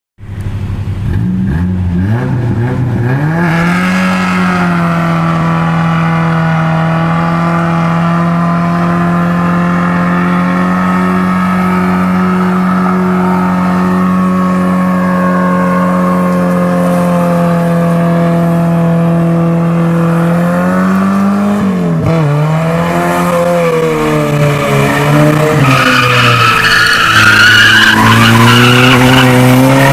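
Chevy S-10 pickup doing a burnout. Its engine revs up over the first few seconds and is held at high, steady revs for about fifteen seconds while the tyres spin and smoke. The revs then drop and climb again twice, and tyre squeal grows louder near the end.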